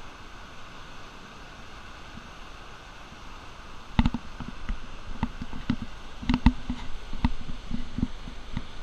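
Steady hiss of small waves breaking on a pebble shore. About four seconds in, a run of irregular knocks and thumps close to the microphone starts and becomes the loudest sound.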